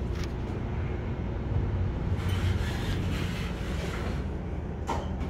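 Otis traction elevator's car doors sliding slowly shut, the door operator giving a steady low rumble and hum, with a short click near the end.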